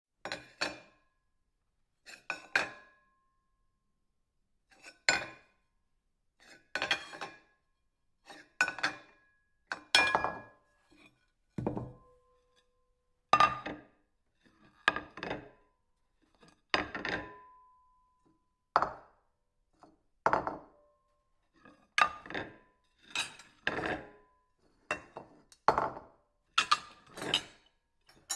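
Ceramic plates being moved and set down, a long series of separate clinks and knocks, some with a brief ringing tone after them.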